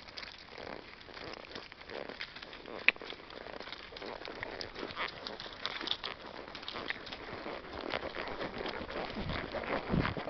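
Horses walking over grass and dry fallen leaves: irregular crunching and light hoof knocks, with one sharp click about three seconds in.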